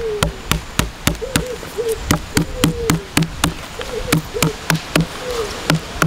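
A knife scraping a snake plant leaf against a wooden board to strip out its fibres for cordage, knocking on the board about three to four times a second. A wavering buzz comes and goes between the strokes.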